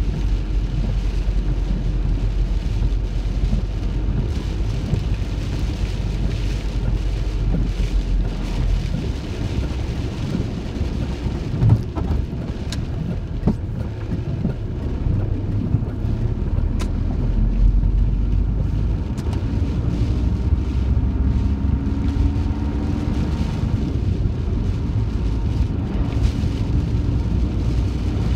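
Heavy rain falling on a van's roof, heard from inside while driving, over a steady low rumble of road and engine noise. A few sharp knocks land near the middle.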